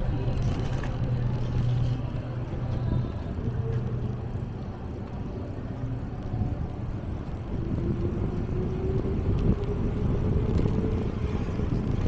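Motor vehicle engine running in city traffic, a low steady rumble, with an engine tone slowly rising in pitch in the second half as a vehicle speeds up.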